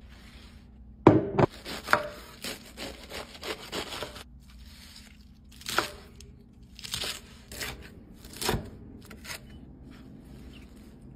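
Knife chopping lettuce on a wooden cutting board: crisp cuts with the blade knocking the board, in irregular runs. The heaviest knocks come about a second in, with a quick run of cuts after them and scattered single cuts later.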